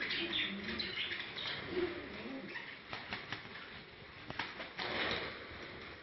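Male pigeon cooing in courtship display, low warbling coos over the first two seconds. After that come a few sharp clicks and a short rush of wing flapping about five seconds in.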